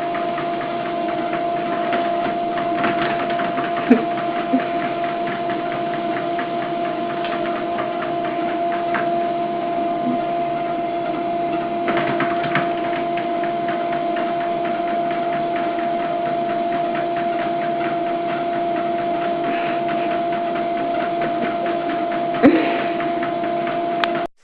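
Steady machine drone with a constant two-note whine, one note an octave above the other, and a few light knocks over it; it cuts off abruptly near the end.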